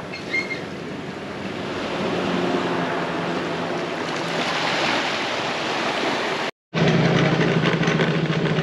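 Small waves washing onto a sandy beach, the wash swelling about halfway through. After a brief silent cut about two-thirds of the way in, a motor scooter's small engine runs steadily as it is ridden.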